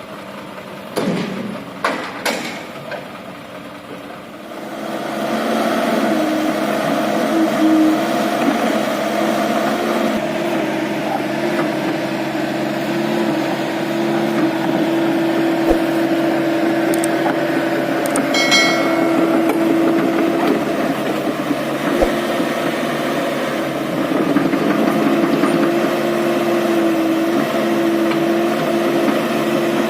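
Heavy diesel engine of a dump truck or excavator running steadily, getting louder about five seconds in after a few short knocks. About halfway through there is a brief high-pitched squeal.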